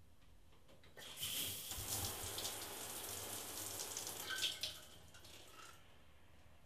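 Shower running: water sprays from the showerhead in a tiled shower stall, starting suddenly about a second in and cutting off after about four seconds.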